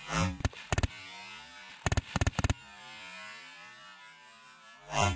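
Two short full-auto bursts of small-calibre shots, about ten a second, hitting a miniature concrete-block building. A longer, louder bang comes just after the start and another near the end.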